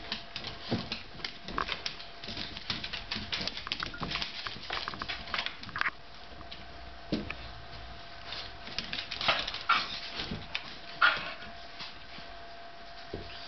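Dogs' claws clicking and pattering on a hardwood floor as they move about, in irregular scattered ticks, with a few sharper, louder sounds in the second half.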